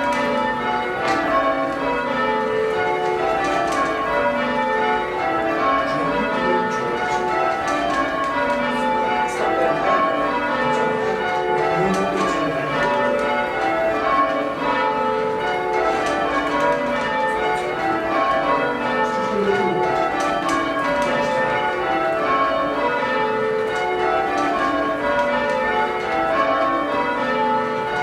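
Church tower bells rung full-circle by a band of ringers, each bell striking in turn. The strikes fall from the highest bell to the lowest in rows that repeat one after another, the bells ringing on over each other.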